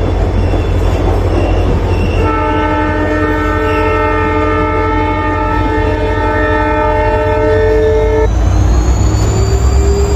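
WDP4 diesel-electric locomotive, an EMD 16-cylinder two-stroke diesel, running with a heavy low throb while its multi-tone horn sounds steadily for about six seconds. After the horn stops, the engine note grows louder and pulses harder and a whine rises in pitch as the locomotive accelerates.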